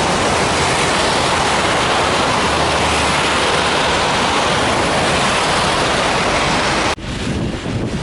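Strong wind making a loud, steady rushing noise; about seven seconds in it drops abruptly to quieter, gustier wind.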